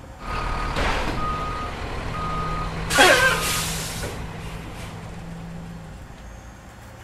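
Truck reversing beeper sounding four short beeps at one steady pitch, about one a second. About three seconds in comes a loud hiss with a falling squeal, like a truck's air brake, over a low steady hum.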